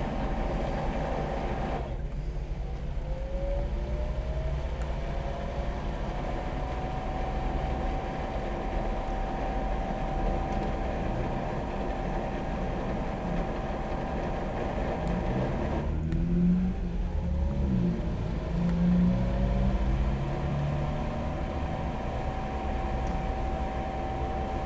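DAB E.sybox inverter-driven booster pump running with a steady motor whine. Twice, about two seconds in and again about sixteen seconds in, the pitch drops suddenly and then rises smoothly back to the same steady note over several seconds as the inverter ramps the motor speed back up. A lower rumble joins the second ramp-up.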